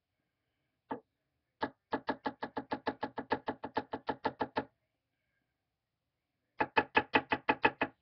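Rapid knocking, about six or seven taps a second: a single tap, a long run of about twenty taps, a pause, then a shorter run. It sounds like an Atmos Raw vaporizer being tapped against a hard surface to knock leftover material out of its chamber.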